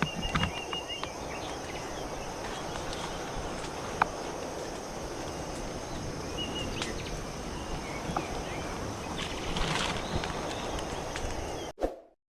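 Outdoor forest ambience: a steady rushing noise with a few short bird chirps and light clicks, cutting off suddenly near the end.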